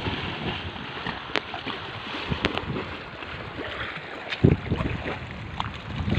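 Seaside outdoor ambience: a steady hiss of wind and lapping water, with a few faint clicks and a short low bump of wind on the microphone about four and a half seconds in.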